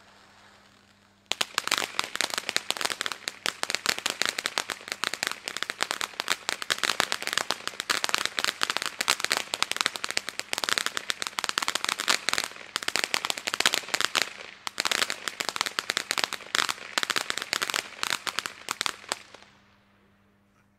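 Weco Color Engine firework fountain: a faint hiss of the spraying fountain, then about a second in a dense crackling starts suddenly. The crackling goes on for about eighteen seconds and dies away shortly before the end.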